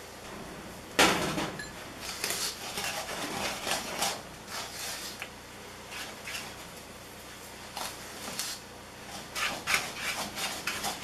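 Wooden spoon stirring flour into a thick cookie dough in a mixing bowl: irregular scraping and knocking against the bowl. About a second in there is one louder knock.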